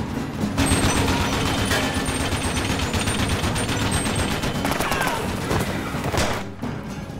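Gatling gun firing a long rapid burst, the shots running together in an even rattle that breaks off about four and a half seconds in.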